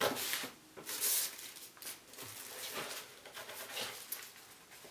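Packaging rustling and crinkling as items are handled and pulled from a cardboard subscription box, loudest in two short bursts at the start and about a second in, then softer scattered rustles and light knocks.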